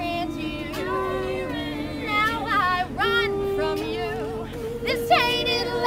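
Women's a cappella group singing in harmony. Lower voices hold long steady notes while a higher lead line moves and wavers over them, and a fuller, louder chord comes in about five seconds in.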